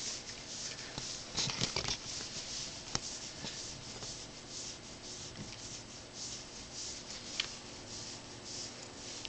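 A hand rubbing and stroking a cat's fur close to the microphone, a hissy rubbing noise about twice a second with a few sharper scratchy clicks in the first three seconds, over a faint, steady purr from the cat.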